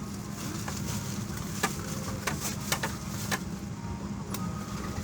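Steady drone of an airliner cabin with a constant low hum, broken by a few sharp clicks in the middle.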